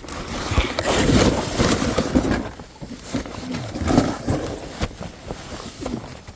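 Someone crawling through a crawl space: clothing and body scraping and crunching over dirt and loose insulation in uneven bouts, with a brief strained grunt about three and a half seconds in.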